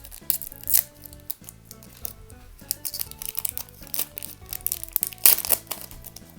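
Booster pack foil wrapper crinkling and tearing open, the loudest rip about five seconds in, over background music.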